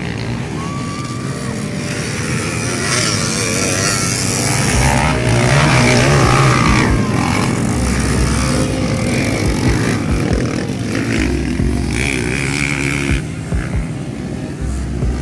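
Motocross dirt bikes revving and accelerating along a dirt track, their engine pitch rising and falling; loudest about five to seven seconds in.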